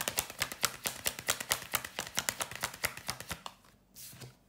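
Tarot cards being shuffled by hand: a fast run of papery card clicks that stops about three and a half seconds in, followed by a short soft swish of a card.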